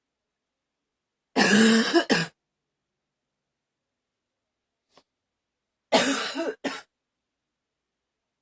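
A woman coughing in two bouts about four seconds apart. Each bout lasts about a second and is broken into two or three coughs.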